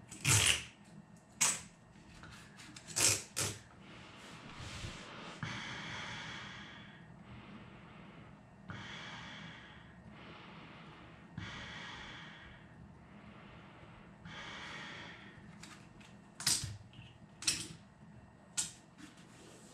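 Slow breathing through a UNIX 5100 full-face respirator mask fitted with P3 particulate filters: several long, hissing breaths drawn in and out through the filters and valves. Sharp clicks and rubbing of the mask's straps and buckles come at the start, as it is fitted, and again near the end, as it is loosened.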